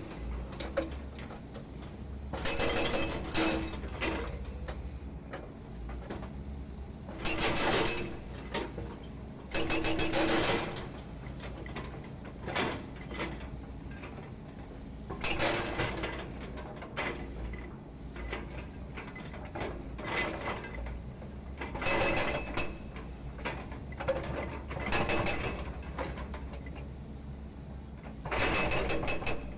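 Hydraulic breaker on a Volvo EC210D excavator hammering concrete pile offcuts, in short bursts of rapid blows, a second or so each, several times over. A steady low engine hum runs underneath.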